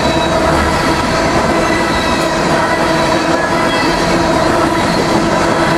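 Empty steel coal hopper cars of a freight train rolling past: a steady, loud rumble of wheels on rail with constant ringing tones over it.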